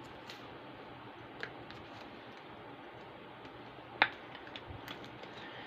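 A few light clicks and taps from handling trading cards and their plastic packaging, with one sharp click about four seconds in, over a faint steady hiss.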